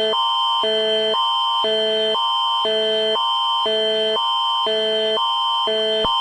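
Synthetic emergency-alert alarm: a low chord and a higher chord alternate about every half second, over a steady high-pitched tone.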